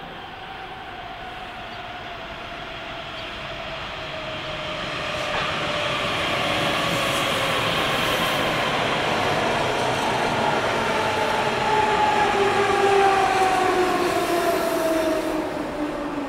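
Berlin S-Bahn class 480 electric train approaching and braking into the station. Wheels rumble on the rails, growing louder to a peak about three-quarters of the way through, while the traction motors' whine falls steadily in pitch as it slows.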